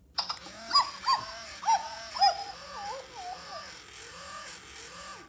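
Hasbro I-Dog robot toy dog's small speaker playing electronic puppy sounds: four sharp yips in the first two seconds, then wavering, warbling tones that cut off suddenly near the end.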